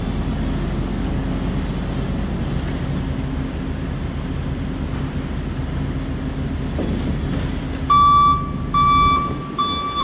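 Steady low hum of the Raymond electric forklift and warehouse, then about 8 s in the forklift's backup alarm starts beeping, roughly one and a half high beeps a second, as it reverses.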